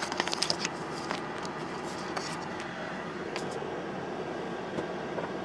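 MAN TGS 40.480 truck's six-cylinder diesel engine running steadily, heard from inside the cab during a test run after a clutch kit replacement. A quick flurry of light clicks and knocks in the first second, with a few single clicks later.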